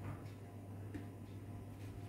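Faint sounds of fingers mixing rice and chicken curry on a plate, with a few soft clicks over a low steady hum.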